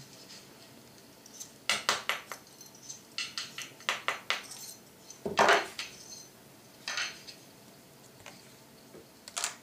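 A steel pin punch struck with a big screwdriver used as a hammer, driving out the trigger-unit retaining pins of a Weihrauch HW80 air rifle action: quick runs of sharp metallic taps in the first half, a louder metal clatter about five and a half seconds in, and a couple of single clinks near the end.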